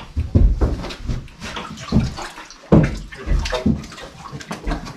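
Horse colts drinking from a water tank: uneven gulps and slurps with water sloshing in the tank.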